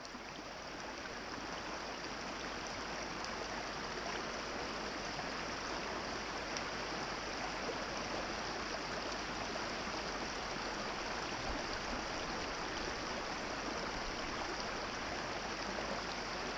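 A small brook running over rocks: a steady rush of flowing water that fades in over the first couple of seconds.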